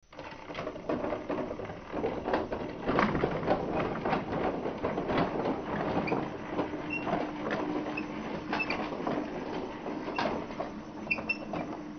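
Motorised Lego Powered Up train running on plastic track: irregular clicking and rattling of the wheels over the rails, with a steady hum coming in about halfway through.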